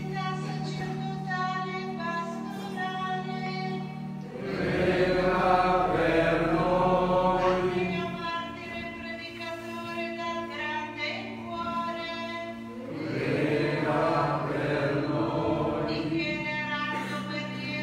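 Church choir singing a slow hymn over sustained chords; the voices swell louder twice.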